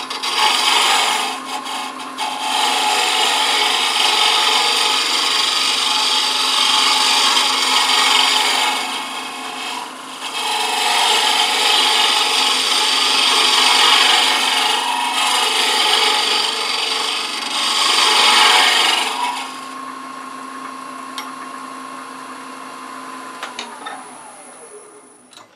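A turning tool shear-cuts the inside wall of a wooden box spinning on a wood lathe: a loud rasping cut in several long passes with brief pauses, over the steady hum of the lathe. The cutting stops about three-quarters of the way through. The lathe's hum is then left alone and falls in pitch near the end as the lathe spins down.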